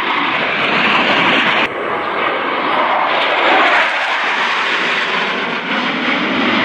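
Roar of F-16 fighter jet engines as the jets fly past overhead: a loud, even rush of jet noise that changes abruptly twice, about one and a half and three seconds in.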